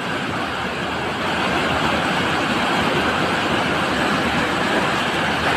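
Turbulent floodwater rushing past in a steady, loud wash of noise.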